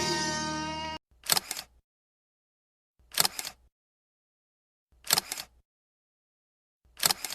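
Music cuts off about a second in, then a camera shutter click sounds four times, about every two seconds, each a quick double click with dead silence between.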